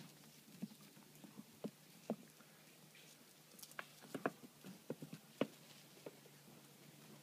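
Faint, scattered light clicks and scrapes on dry stony ground. They come irregularly and bunch up in the middle, over a faint steady hum.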